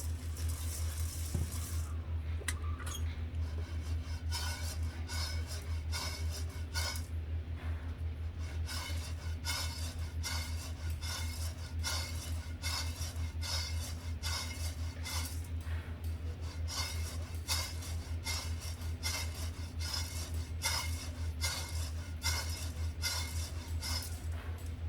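Coffee beans being stirred and tossed in a metal pan while roasting: rapid, irregular metallic clinks and scrapes, several a second, over a steady low hum.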